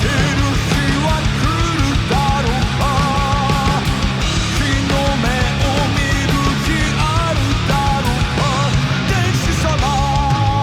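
Heavy rock band music playing loud, with a dense low end and a wavering lead melody line over it.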